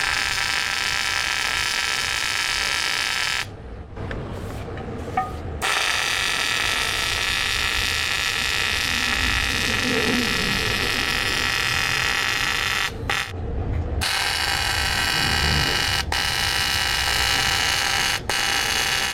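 AC TIG welding arc buzzing steadily as a new aluminium piece is welded into the cut-out crack of an alloy wheel. The arc stops for a couple of seconds about three and a half seconds in and for about a second near thirteen seconds, with brief breaks later on.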